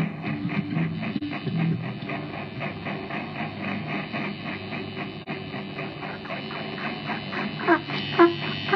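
Live band playing amplified guitar and bass, with a few sharp, loud plucked guitar notes near the end.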